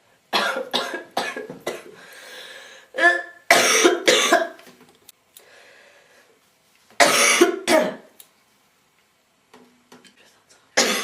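A girl coughing in several bouts: a quick run of short coughs just after the start, a louder bout about four seconds in, another about seven seconds in, and one more at the very end.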